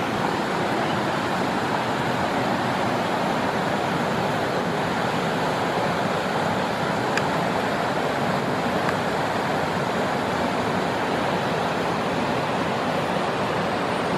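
River water rushing steadily, a constant even sound of flowing water.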